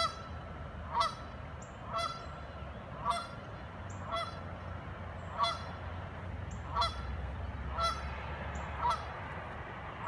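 Canada geese honking, single calls repeated about once a second, over a steady low rumble.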